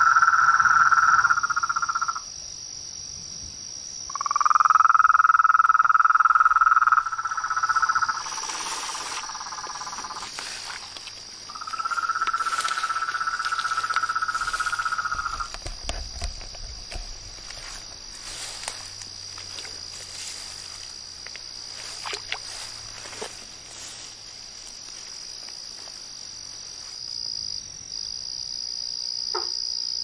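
A toad gives long, even trilling calls, three times, each lasting a few seconds, over a steady high drone of crickets. Near the end come a couple of short clicking calls from another frog.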